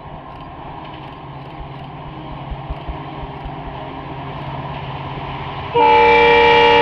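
WDP4D diesel locomotive approaching, its engine a steady low hum over a rumble that slowly grows louder, with a few low knocks near the middle. About a second before the end its multi-tone air horn blasts suddenly and loudly and holds.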